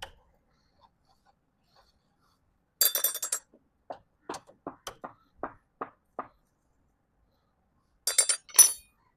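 Metal parts clinking and rattling together, once about three seconds in and again, louder, near the end, with a run of separate light knocks in between.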